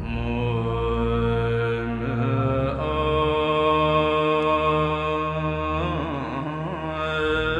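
Tibetan Buddhist prayer to Guru Rinpoche chanted in long, held sung tones, with a steady low drone underneath.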